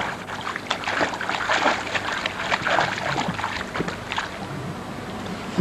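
Water splashing as a small child held at the surface of a pool kicks and paddles; quick, irregular splashes, busiest in the first four seconds and easing off after.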